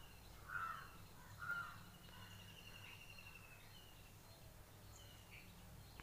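Near silence with faint bird calls: two short calls in the first two seconds and thin faint whistles later, over a steady low hum.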